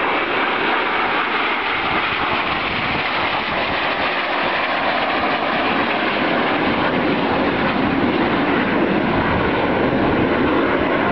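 Steady jet roar of a formation of Aermacchi MB-339 jet trainers flying past, growing a little louder near the end.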